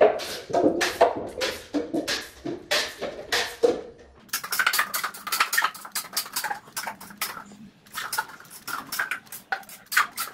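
Toy blaster firing repeatedly at a stack of paper cups: a run of sharp snaps and clicks, a few a second at first and coming faster from about four seconds in, mixed with the light clatter of cups being hit and toppling.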